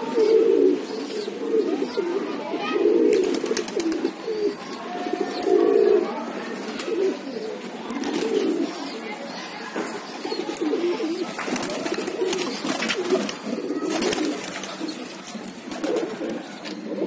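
A flock of domestic pigeons cooing continuously, low overlapping coos one after another, with a few sharp scuffs or clicks among them.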